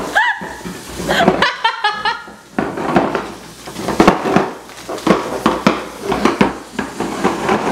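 Metal food cans being set down on a kitchen counter, clunking against the counter and each other in a run of short knocks through the second half.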